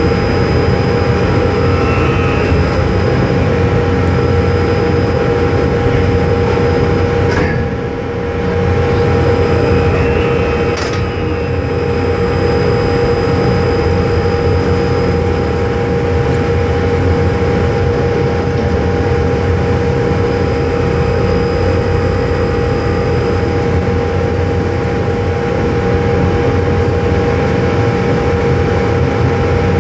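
Drilling rig floor machinery running steadily during casing running: a constant heavy engine drone with a steady high whine on top, dipping briefly about eight seconds in.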